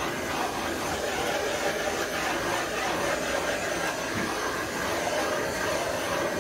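Gas torch flame running with a steady rushing hiss, burning the isopropyl alcohol off a fresh epoxy surface.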